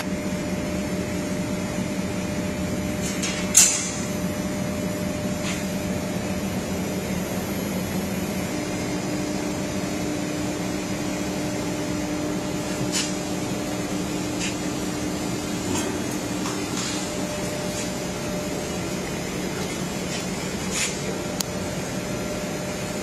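CNC router machine running with a steady hum and hiss, broken by a few short sharp clicks, the loudest about three and a half seconds in.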